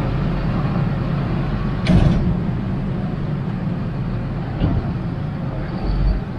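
John Deere row-crop tractor's diesel engine running steadily as it pulls a grain cart, with one loud clank about two seconds in and a lighter knock a few seconds later.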